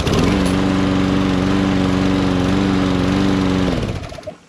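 Briggs & Stratton Quantum single-cylinder engine on a Lawn-Boy self-propelled push mower running at a steady speed, an engine the owner calls perfectly good. Near the end it shuts off and winds down to a stop.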